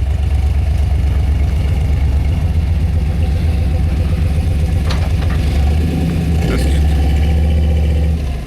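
Heavy plow truck's engine running steadily with a deep rumble while it plows snow, with a couple of short sharp knocks about five and six and a half seconds in.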